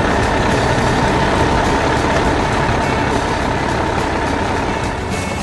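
Heavy excavator engine running steadily under load while digging.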